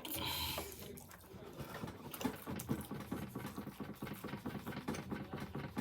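A person chewing a mouthful of hot and spicy chicken sandwich close to the microphone: a run of small, irregular, wet clicks and crunches, after a short breathy hiss at the start.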